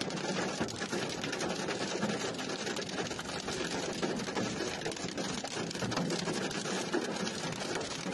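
Hail falling on asphalt: a dense, steady rattle of many small ice pellets striking the pavement.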